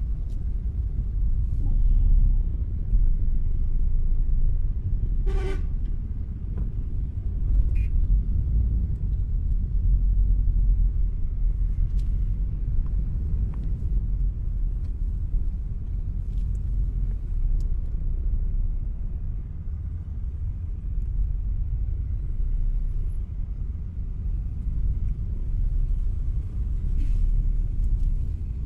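Low, steady rumble of slow, congested road traffic of cars and motorbikes, with one short vehicle horn toot about five seconds in.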